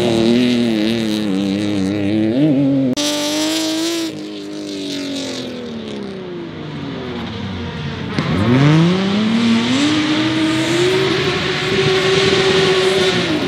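Rally car engines racing on a loose dirt course, the revs rising and falling through gear changes. About eight seconds in, one engine climbs steeply from low to high revs and holds there until it drops off near the end.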